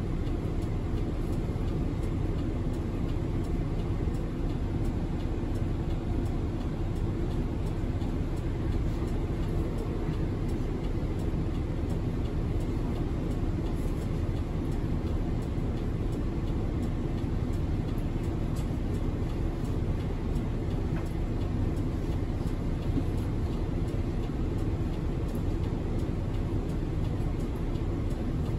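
Hiroden city bus running steadily on the road, heard from inside the cabin at the front: an even engine hum with road and tyre noise.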